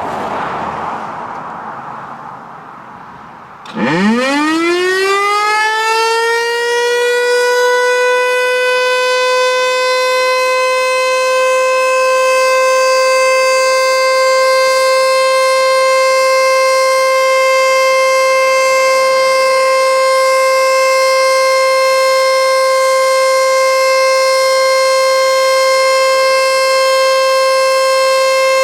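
Federal Signal outdoor warning siren of the Diablo Canyon nuclear plant's emergency zone starting about four seconds in. Its pitch glides up from a low growl over a few seconds as it spins up, then it holds one steady, loud, rich tone at full speed, as in a full annual siren test. Before it starts there is a rushing noise.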